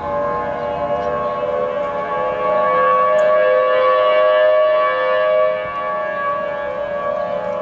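Federal Signal Thunderbolt tornado siren sounding a steady tone, growing louder for about three seconds in the middle as its rotating horn sweeps past and then fading back. Its pitch is off, which the owner takes for a speed problem with the chopper motor.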